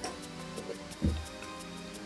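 Soft background music with steady held notes, and a single low thump about a second in as the cardboard figure box is turned over onto the table.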